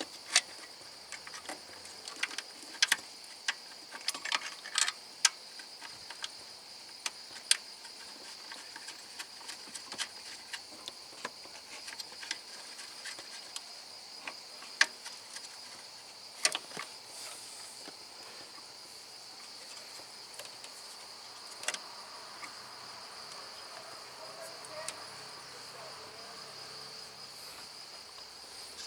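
Crickets chirping steadily in the background, with irregular sharp clicks and knocks from hand work on the car's parts. The clicks come thickest in the first half and are the loudest sounds.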